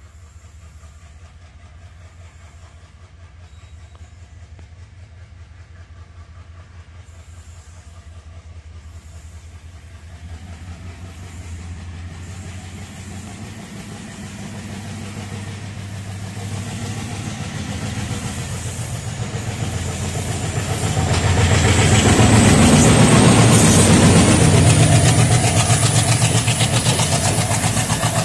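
ALCO WDG3A diesel locomotive's 16-cylinder engine throbbing as it approaches under power, growing steadily louder and peaking about three quarters in as it passes close by, with a high whine rising slowly in pitch through the second half. Near the end the passenger coaches roll past.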